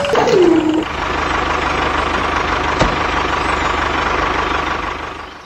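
Tractor engine sound running steadily with an even low chug, opening with a short falling whine in the first second, with one sharp click near the middle; it fades out at the end.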